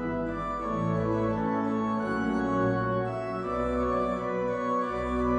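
Johannus Ecclesia 250 digital church organ playing sustained chords over a deep pedal bass. The chords change about once a second.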